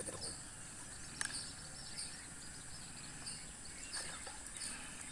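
Faint outdoor ambience: a steady high insect hum with short, repeated bird chirps, and a couple of light taps.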